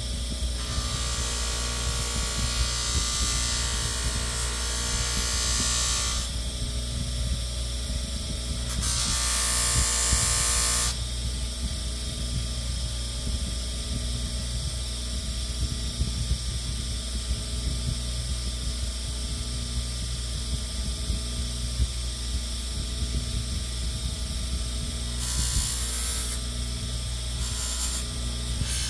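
A small electric power tool's motor running steadily, with three stretches of added high-pitched noise: near the start, around ten seconds in, and near the end.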